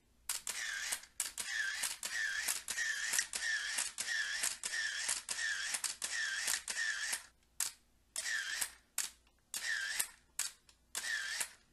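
Canon A-1's shutter firing, with the Canon Power Winder A's motor whirring to advance after every frame. It runs a continuous sequence of about ten frames at roughly one and a half a second, each wind a short whir that dips and rises in pitch. For the rest it fires single frames with pauses between.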